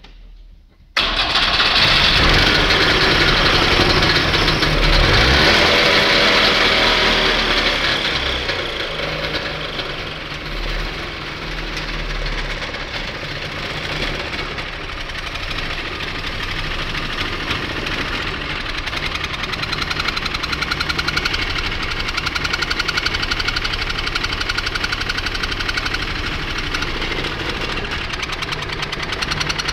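Trabant engine starting about a second in, then running steadily with a fast chirping noise that suddenly appeared, which the owner takes for a sign that something is broken.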